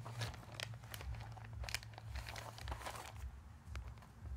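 Faint handling noise of foam clogs being turned over in the hand: a few soft clicks and light crinkling, over a steady low hum.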